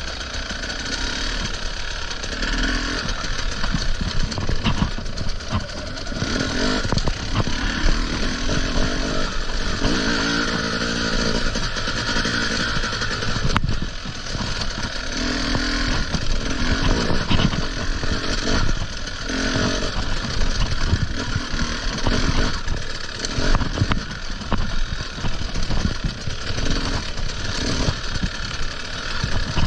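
Enduro motorcycle engine being ridden hard on a forest trail, revving up and dropping back again and again as the throttle is worked.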